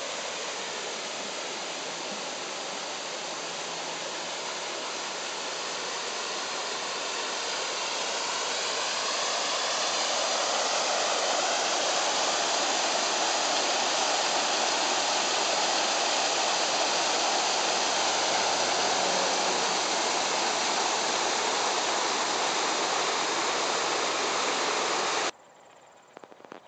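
Water rushing along a narrow wooden flume and pouring over the wooden gate of an old canal guard lock: a steady rushing that grows louder about ten seconds in and cuts off suddenly near the end.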